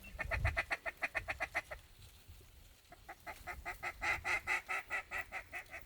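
Rapid duck-call chatter in two runs of quick clucks, about nine a second. The second run is louder and lasts longer.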